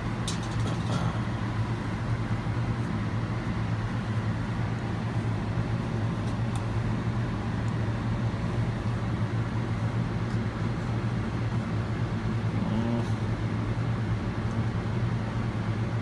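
Steady low hum of a biological safety cabinet's blower fan drawing air through the cabinet, with a few light clicks from plastic tubes and a spatula being handled.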